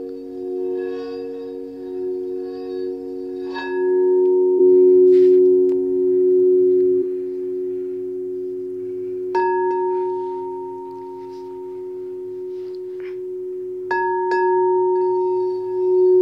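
Quartz crystal singing bowls ringing together in several steady, overlapping tones. A bowl is struck three times, each strike adding a brighter ringing tone that slowly fades.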